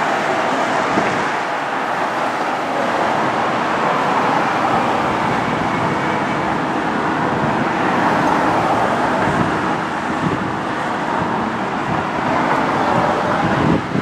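Steady noise of a moving vehicle, with no clear single event, falling away sharply at the very end.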